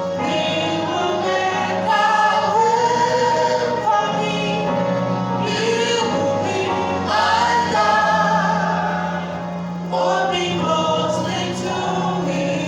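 Congregation and worship band singing a gospel worship song, many voices holding long sung notes over a steady bass.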